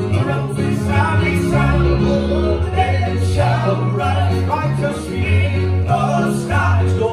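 Male southern gospel quartet singing in close harmony into microphones, with keyboard accompaniment and sustained low bass notes underneath.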